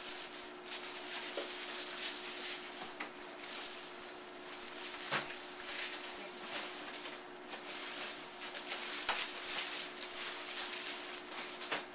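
Clear plastic wrapping around a printer crinkling and rustling against a fabric tote bag as the printer is pulled out and handled, with a few sharper crackles around the middle and near the end. A faint steady hum runs underneath.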